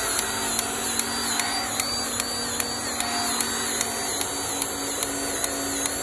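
Milwaukee M18 cordless grease gun running steadily, its motor pumping grease into a concrete pump's manual grease port.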